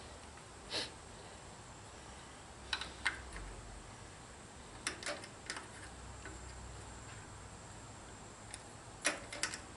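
Light clicks and taps of small distributor parts being handled and fitted by hand on an old tractor engine: about nine sharp clicks scattered through, with a quick cluster near the end, over a faint low hum.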